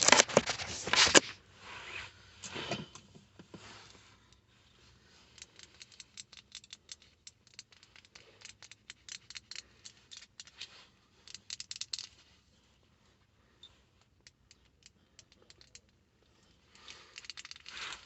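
Close-up ASMR tapping and scratching on small objects: a loud rustling scrape in the first second, then a long run of light, quick taps and clicks, a pause of a few seconds, and a few more taps near the end.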